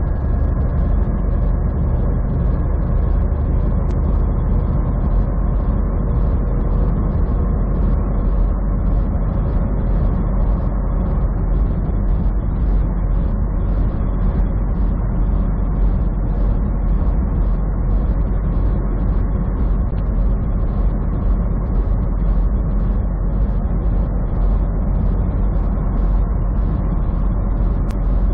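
Steady drone of a semi truck's engine and tyres at highway speed, heard from inside the cab, with a faint ticking about twice a second.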